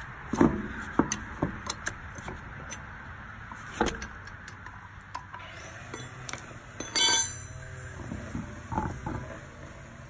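Sharp metallic clinks and knocks of loose lug nuts and metal being handled at a car wheel with its nuts off: a quick cluster in the first second and a half, another knock about four seconds in, and a brief ringing clink about seven seconds in.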